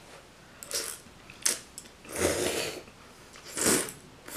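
Ramen noodles slurped off a fork: a few short, wet sucking slurps with mouth noises between them, the longest about halfway through.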